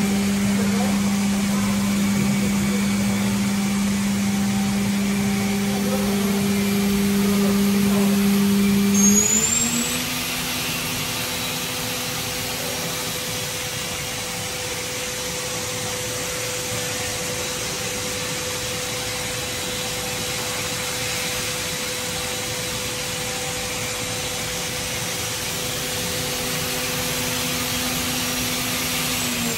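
Doosan NHP5000 horizontal machining center spindle spinning up and running free with a steady whine. The pitch steps up once, about nine seconds in, as the spindle goes from 12,000 to 15,000 RPM, then holds steady.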